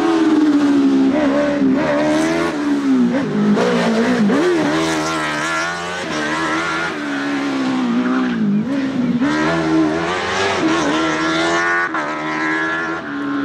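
Suzuki K6 GSX-R1000 inline-four motorcycle engine in a Fiat 500 slalom car, revving hard through the gears and on and off the throttle. Its pitch rises and falls over and over, with sharp drops about four and a half and eight and a half seconds in.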